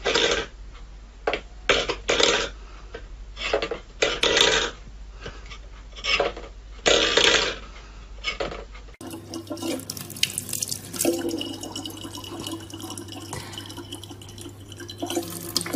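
A stainless-steel bowl pushed about on a wooden floor by a cat's paw, clattering in irregular bursts. After about nine seconds it changes to a thin stream of tap water running steadily into a plastic bottle.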